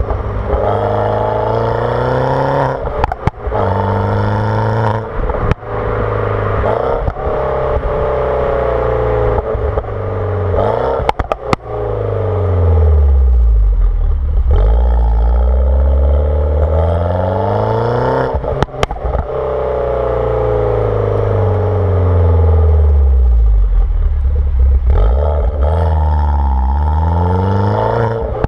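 Turbocharged 1.6-litre N14 four-cylinder of an R56 Mini Cooper S on JCW tuning software, with a JCW exhaust and the catalytic converter removed, accelerating through the gears. The pitch climbs and drops at each shift, then falls back on the overrun, with several sharp exhaust pops and crackles.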